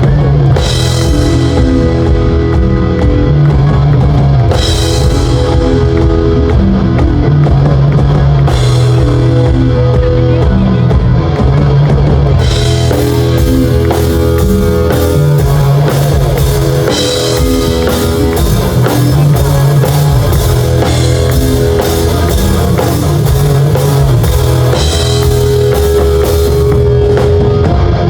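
A live band plays rock-style music loudly through a sound system during a sound check. A drum kit stands out, with cymbal crashes about every four seconds at first, and the drums fill in fully about halfway through.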